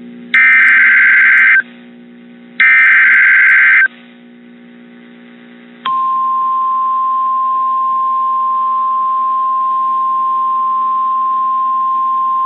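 NOAA Weather Radio emergency alert signal: two harsh, buzzing SAME digital header bursts about a second long with short gaps between them, then a single steady 1050 Hz attention tone that starts about six seconds in and holds. It announces a new severe thunderstorm warning.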